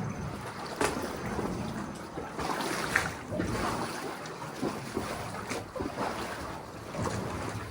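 Water sloshing and lapping around a boat, with wind on the microphone and a few sharp splashes or knocks.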